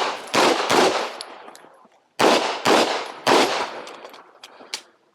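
9mm competition pistol (KMR Spectra) firing a string of about six shots, in quick pairs with a short break about two seconds in.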